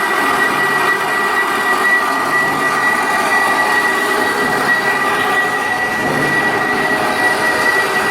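Battery-powered portable line boring machine running steadily while boring, its motor and drive giving a steady high whine.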